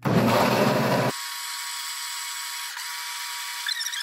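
Electric blender motor whirring as it regrinds a garlic, ginger and salted-shrimp seasoning mix that was not ground finely enough. About a second in the deep part of the sound drops away abruptly, leaving a thinner, steady high whine.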